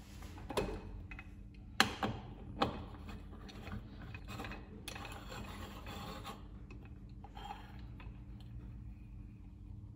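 A moka pot being put together: a few sharp metal clicks and knocks in the first three seconds, then a scraping rub of metal threads as the top is screwed onto the base, over a steady low hum.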